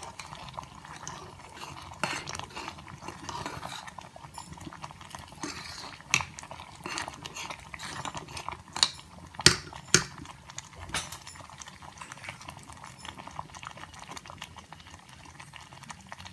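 Spoon stirring tomato dal simmering in a pot, clinking against the pot's sides over a faint bubbling, with a few sharper clinks about halfway through.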